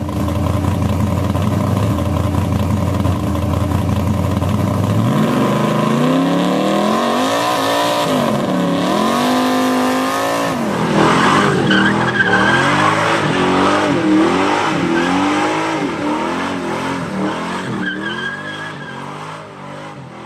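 Car doing a burnout: the engine holds a steady note, then revs up and down again and again while the spinning rear tyre squeals, and the sound fades out near the end.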